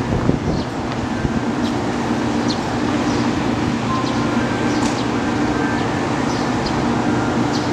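Steady hum of a stationary electric train's onboard equipment at the platform, with a few faint, short high chirps above it.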